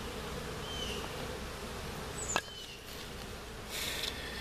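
Honeybee colony humming steadily from an opened hive under inspection. A sharp click comes about halfway through, and a short hiss comes near the end.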